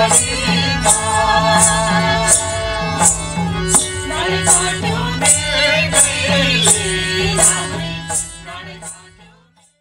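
Nepali folk music accompanying a Maruni dance: a sung melody over a hand drum and a steady beat of sharp strokes, about two a second. The music fades out near the end.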